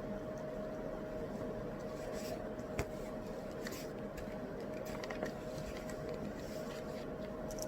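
Steady background hiss with a constant low hum, broken by several faint, short scratches and clicks, such as a pen or pages moving on a desk.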